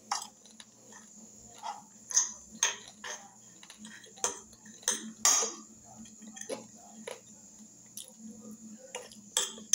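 Metal fork clinking and scraping against a glass bowl in irregular sharp clinks as food is scooped up.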